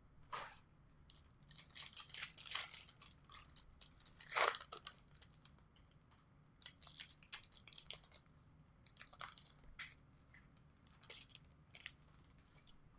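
Trading card pack wrappers being torn open and crinkled, with cards rustling and sliding against each other in uneven bursts; the loudest rip comes about four and a half seconds in.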